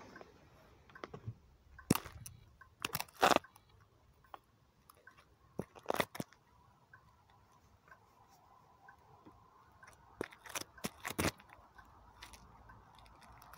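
Block-heeled boots stepping and shifting on grit on a road surface: a handful of sharp crunches and clicks a few seconds apart.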